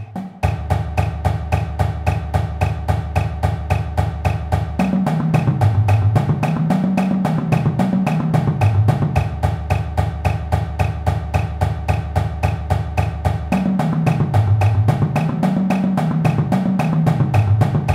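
Notation-software playback of a marching percussion exercise at tempo 110: snare drum playing steady accented eighth notes, with tuned marching bass drums playing unison eighths and split sixteenth-note runs that sweep down and up across the drums twice. It ends on a single accented unison hit.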